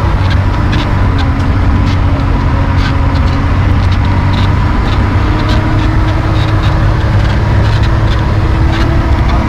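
A vehicle engine running steadily, heard from inside the cabin while it moves, with frequent light rattles.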